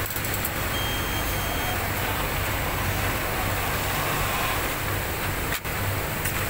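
Steady hum and hiss of running industrial machinery, with a low hum and, about a second in, a faint high tone lasting about a second.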